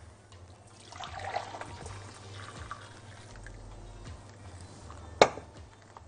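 Pickling brine poured in a thin stream into a glass jar of onions, then a single sharp clink a little after five seconds in.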